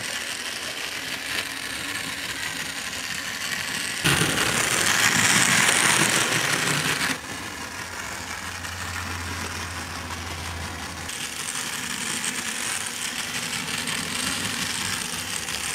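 Knockoff Thomas toy train's small battery-powered motor whirring steadily while its plastic wheels rattle around a plastic track; louder for about three seconds a few seconds in.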